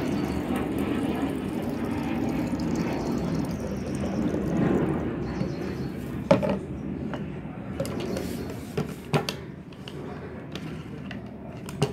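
Liquid being poured from a plastic bowl into a plastic spray bottle, a steady splashing for about the first five seconds. After that come several sharp plastic knocks and clicks as the bowl and the bottle's pump-sprayer top are handled.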